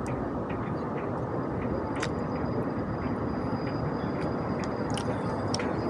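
Steady street background noise, a low hum of passing traffic, with a few faint clicks and a thin, high, steady tone that starts about a second in.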